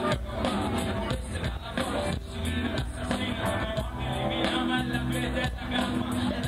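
Live band music played over the PA: a rock band with a drum beat, low sustained bass notes and a singing voice.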